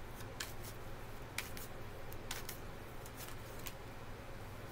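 A tarot deck being shuffled by hand: short, irregular card clicks and snaps over a faint low hum.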